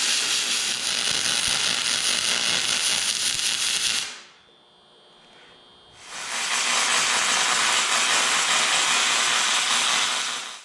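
MIG welding on aluminum: two runs of steady crackling hiss from the arc, the first about four seconds long, then a pause of about two seconds, then a second run that stops abruptly near the end.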